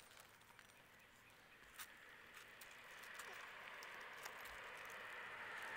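Faint scattered clicks and rustles of heat cable being handled and pressed into plastic roof clips on asphalt shingles, over a soft hiss that slowly grows louder in the second half.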